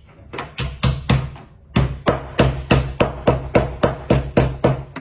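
Hammer blows on a smartphone's glass and frame: a few strikes, then a quick steady run of about three sharp knocks a second.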